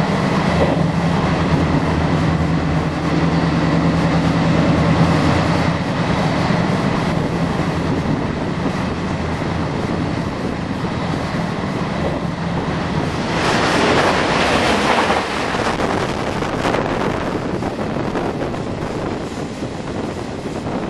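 Passenger train running on the line, heard from on board: a steady rumble of wheels on rail with some clickety-clack, under a low steady hum that fades about twelve seconds in. A louder rush of noise comes about fourteen seconds in.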